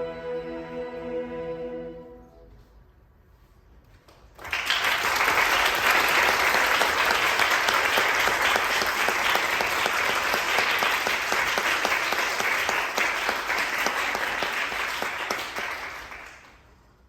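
A choir's held final chord dies away about two seconds in, and after a short hush the audience applauds steadily for about twelve seconds before it fades out.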